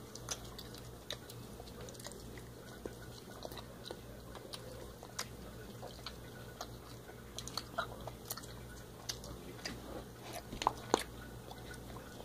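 Mouth sounds of eating Warheads extreme sour candy: scattered soft clicks and smacks of chewing and sucking, over a faint steady low hum.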